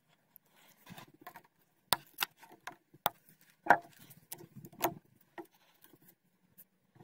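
Scattered sharp clicks and light knocks of hands handling a plastic camera grip, with a little rustling between them, as cable ties are snipped and pulled off it and a flashlight is set into its top mount. The loudest knocks come in the middle.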